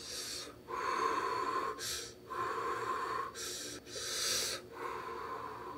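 A man huffing quick breaths in and out through his mouth while eating a freshly baked financier that is still hot from the oven.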